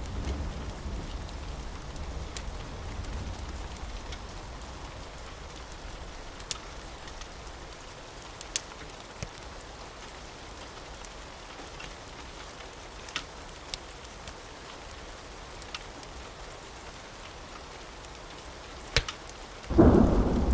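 Steady rain with a low thunder rumble that fades away over the first few seconds, and a few scattered sharp pops. A loud clap of thunder breaks in suddenly just before the end.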